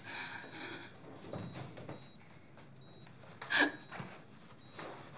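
A woman's breathy, tearful gasps, with one short choked sob that falls in pitch about three and a half seconds in.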